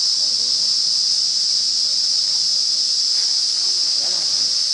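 A steady, high-pitched insect chorus, droning without a break.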